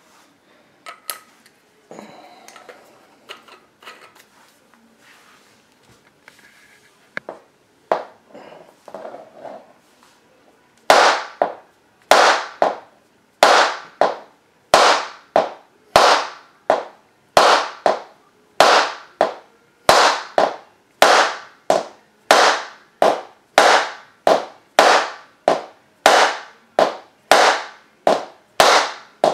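Hammer-type inertia bullet puller being struck against a hard surface over and over, working a tight bullet out of a .41 Magnum cartridge that seems heavily crimped. A few lighter knocks and handling come first; then about 11 seconds in sharp, ringing blows begin and repeat steadily, about three every two seconds.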